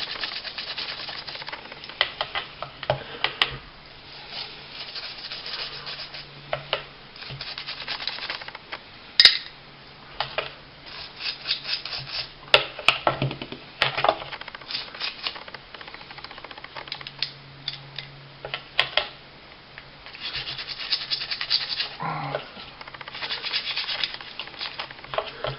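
A small gun-cleaning brush scrubbing the frame rails of a disassembled 9mm pistol in quick, irregular strokes, with short pauses and a few sharper clicks.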